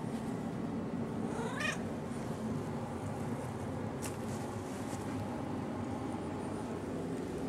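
Domestic cat meowing once, a short call rising in pitch about a second and a half in, followed by a light click a couple of seconds later.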